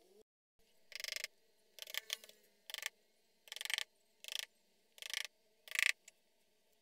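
Letters being pressed one at a time into fine moulding sand, each giving a short gritty crunch; about seven in a row, a bit under a second apart.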